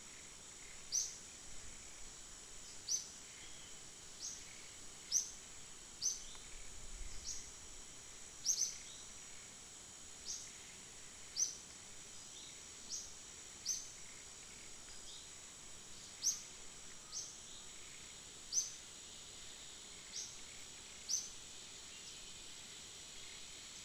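A bird repeating a short, high upward chirp about once every second or so, over a steady high-pitched insect drone.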